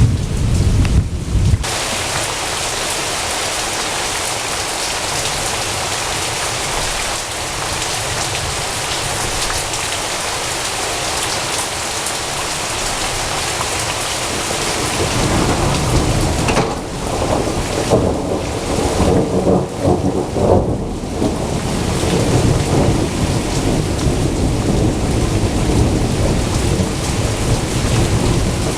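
Rain falling steadily during a thunderstorm, with thunder: a low rumble dying away in the first couple of seconds, then another long rumble building about halfway through and rolling on to the end.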